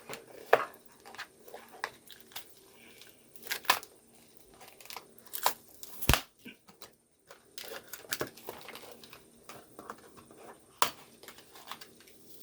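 Doll packaging being handled: irregular sharp plastic clicks and crinkles as outfit pieces are pulled free from their plastic fasteners and backing.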